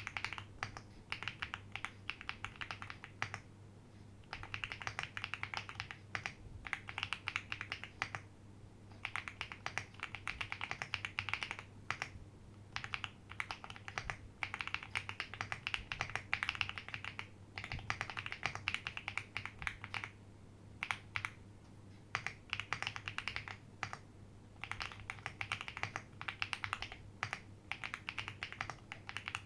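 Slow typing on a plateless, all-foam JRIS65 mechanical keyboard with a two-layer tape mod, Akko Cream Blue Pro V3 switches and doubleshot ABS keycaps. Runs of key clacks are broken by short pauses every few seconds.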